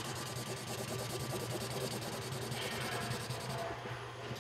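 Felt-tip marker rubbing and scratching on paper as someone colours, over a steady low hum and hiss.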